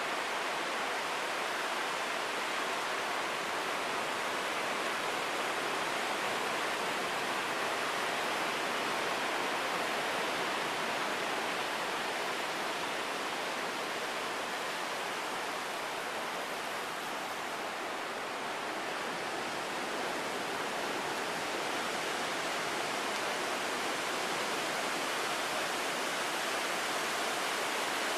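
Ocean surf: a steady, continuous wash of breaking waves, with the hiss thinning slightly for a few seconds about two-thirds of the way through.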